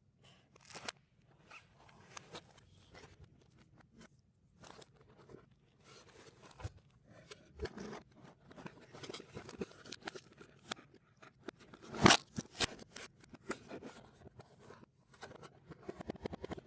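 Snack wrappers and packaging being handled and crinkled, played in reverse: irregular crinkles, rustles and clicks, with one loud sharp crackle about twelve seconds in.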